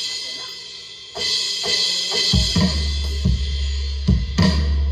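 Alesis Turbo Mesh electronic drum kit played along with a backing song: a cymbal crash about a second in, then drum hits over a steady bass line and guitar that come in a little over two seconds in.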